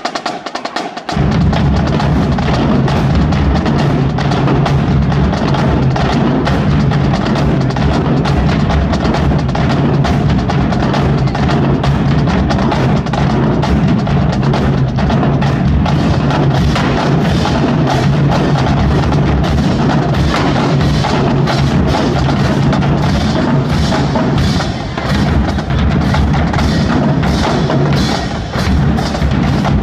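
Marching drumline playing a loud, dense cadence, with rapid snare-type strikes over deep bass drums. The full line comes in about a second in.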